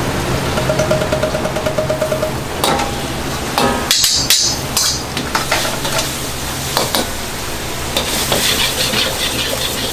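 Metal ladle clanging and scraping against a wok as food is stirred and tossed over a gas burner, with rapid light tapping in the first two seconds and then scattered louder strikes. A steady low hum of the burner runs underneath, with some sizzling.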